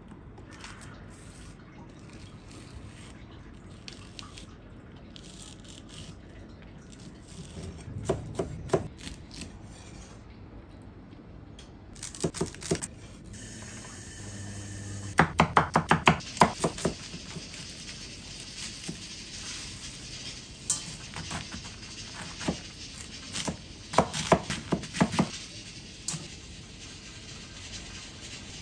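Kitchen food-prep sounds: several short bursts of quick knocks from utensils on a board or pan, the loudest a little past halfway, over a steady low hiss.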